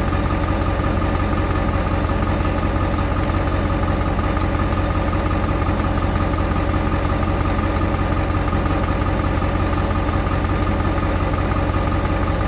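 Air compressor running steadily: a constant motor hum with a fast, even low pulse.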